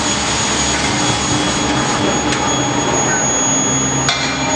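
Medium-frequency induction heating furnace running on steel bars for forging, a steady loud machine noise with a steady high-pitched tone through it. A single click near the end.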